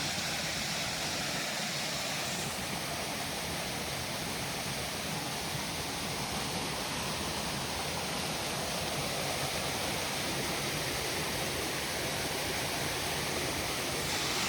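Small waterfalls on a creek running high after very heavy rain, the water rushing with a steady, even noise.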